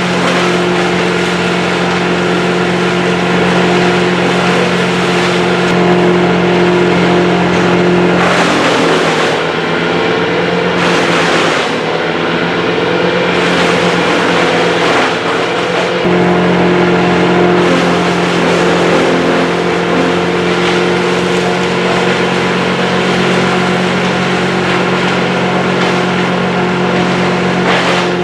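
Tree crew's powered equipment: an engine running steadily at a constant speed. It turns rougher and noisier, with its note wavering, for several seconds around the middle, then settles back to the same steady running.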